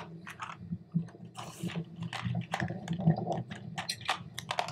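Water splashing and slapping against a small boat's hull in a quick, irregular run of short splashes, over a steady low hum.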